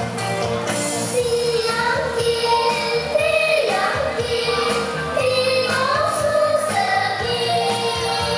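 A song playing for a dance routine: backing music with a high singing voice coming in about a second in and carrying the melody.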